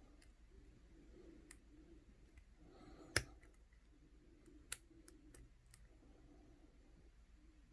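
Sparse light clicks of a lock pick working the pins of a Master Lock No. 160 brass padlock, with two sharper clicks about three and four and a half seconds in.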